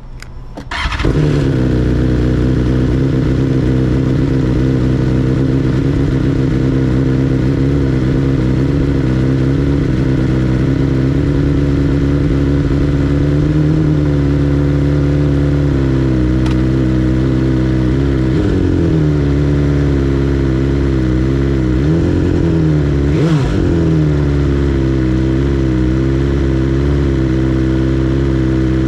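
BMW S 1000 R inline-four motorcycle engine starting about a second in, then idling steadily. A few short throttle blips rise and fall in the second half.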